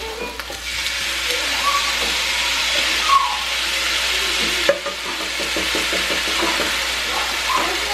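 Chicken and brown rice sizzling in a frying pan on the stove, a steady hiss being stirred, with a sharp clink about halfway through and a run of quick light scrapes after it.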